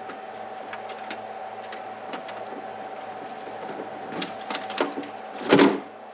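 Scattered light clicks and taps of small hardware and tools being handled, with a louder clatter about five and a half seconds in, over a steady electrical hum.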